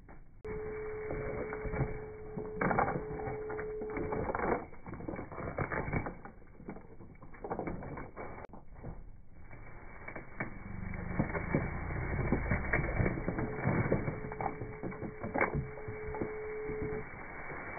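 Scrap being rummaged and shifted by hand: irregular knocks, clatter and creaks of metal and wood being moved about. A steady whining tone sounds twice, for a few seconds each time.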